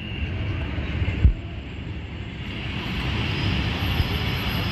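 EP3D electric multiple unit pulling into the platform: a steady rumble from its running gear and traction equipment, growing louder as the front car comes alongside, with a single thump about a second in.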